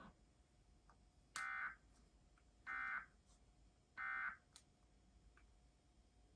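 Emergency Alert System end-of-message signal: three short bursts of buzzy digital data tone, about a second and a third apart.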